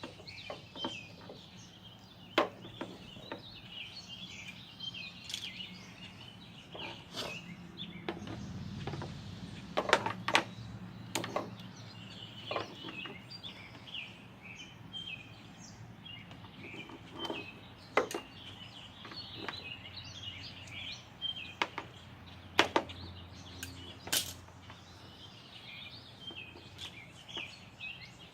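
Small birds chirping continuously in rapid short calls, with sharp clicks and snaps about a dozen times from hands working on wiring and tools. A low hum rises and fades near the middle.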